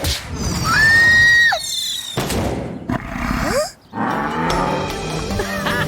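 Cartoon soundtrack: background music mixed with action sound effects, with a high, drawn-out cry about a second in and noisy effects after it.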